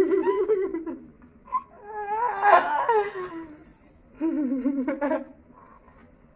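A person laughing in three bouts, each about one to two seconds long.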